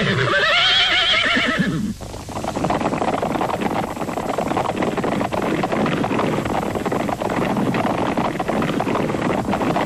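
A horse whinnying, a quavering call lasting about two seconds. It is followed by a dense, steady rumbling clatter with rapid thuds.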